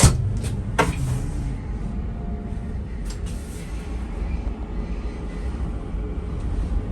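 Train running with a steady low rumble, with a few sharp knocks in the first second and another at about three seconds.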